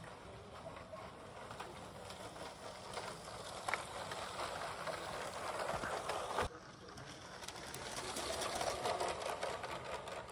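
Lego High Speed Passenger Train 60051 running on plastic Lego track: its electric train motor whirs and its wheels rattle and click over the rail joints. The sound grows louder as the train comes close, cuts off suddenly about six seconds in, then a similar rattling builds again.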